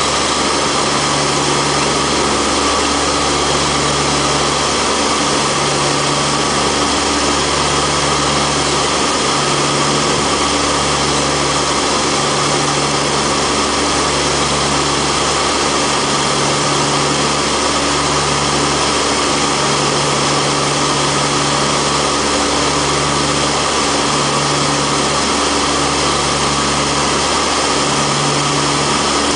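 Antonov An-32's twin Ivchenko AI-20 turboprop engines and propellers droning steadily, heard inside the cockpit in flight, with a slow regular throb about every second and a half.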